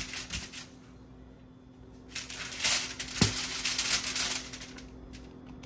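Aluminium foil crinkling as it is pressed and crimped around the rim of a baking pan, in two spells, the second starting about two seconds in, with a single knock near its middle.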